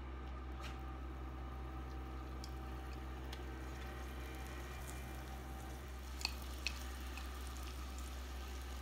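Electric smokeless indoor grill running with a steady low hum, with faint scattered ticks and pops from veggie bacon pieces laid into hot olive oil on the grill plate. Two sharper clicks come a little past the middle.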